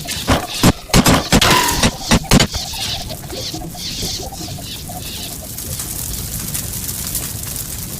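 Sound effect of a volley of arrows: a quick run of sharp hits in the first two and a half seconds, then a steady hiss.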